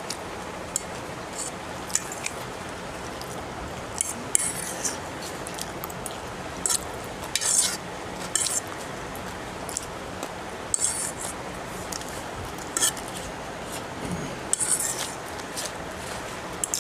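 A metal fork scraping and clicking against a plate at irregular moments as chowmein noodles are gathered and lifted, many short sounds over a steady low hiss.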